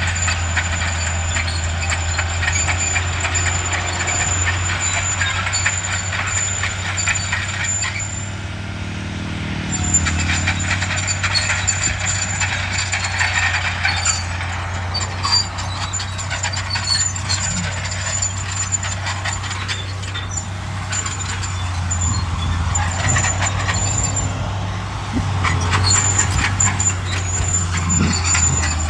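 Bulldozer's diesel engine running under load, with a steady high whine and a busy clatter of knocks from the machine working the dirt. About eight seconds in the engine eases off and drops in pitch for a moment, then picks up again.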